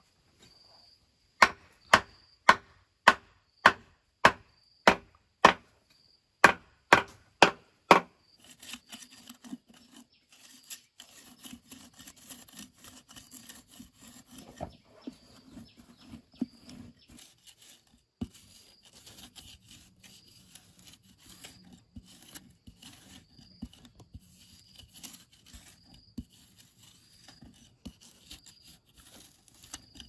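About a dozen sharp knocks on wood, roughly two a second, in the first eight seconds, followed by a long stretch of scraping and rubbing. Insects chirp steadily behind.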